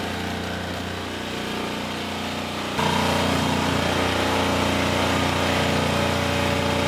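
Handheld electric sander running steadily against the wooden side panel of a railway carriage under restoration, with an even motor hum; it gets louder about three seconds in.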